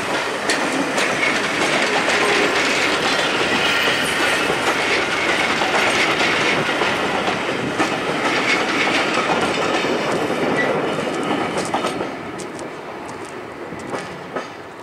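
Passenger coaches of a departing train rolling past, their wheels clicking over the rail joints. The sound drops away about twelve seconds in as the last coach clears, leaving a fainter rumble of the receding train.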